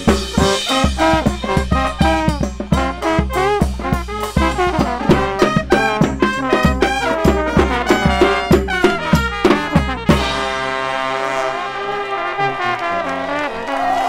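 New Orleans second-line brass band playing, with trombones, trumpets and sousaphone over a driving drum beat. About ten seconds in the drums stop and the horns hold one long chord.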